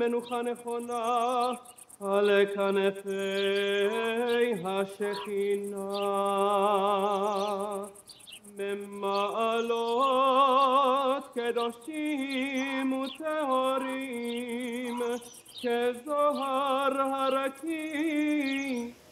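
A solo voice singing slowly in long held notes with a marked vibrato, in phrases of a few seconds separated by short pauses.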